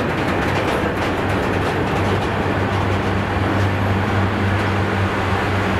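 Freight train wagons rolling past close by: a steady rumble of wheels on the rails with a few clicks at first, and a low steady hum setting in about two seconds in.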